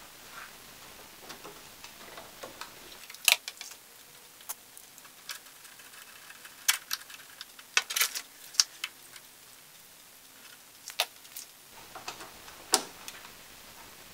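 Irregular sharp metallic clicks and clinks as a steel sprocket and a bicycle chain are handled and fitted onto a small actuator's shaft.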